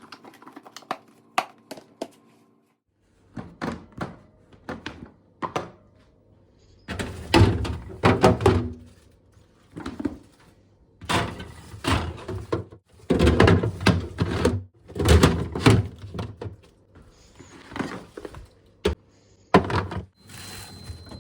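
A run of irregular knocks and thuds with rustling between them, as objects are handled and set down in a kitchen. Light ticking over a steady hum opens the stretch and stops about three seconds in.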